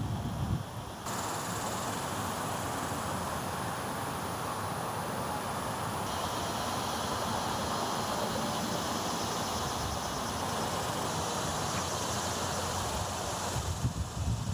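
Steady outdoor background noise, a continuous rushing hiss, with low wind rumbles on the microphone near the start and near the end.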